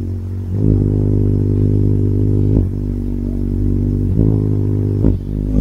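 A hummingbird's wings humming as it hovers close to the microphone: a steady low buzz, with a few short knocks.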